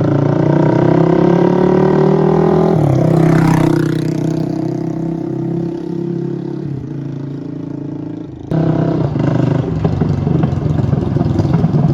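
Yamaha Raptor 700R ATV's single-cylinder engine under way: it revs up with rising pitch for the first few seconds, drops off, runs lower and quieter, then comes back loud suddenly about two-thirds of the way through.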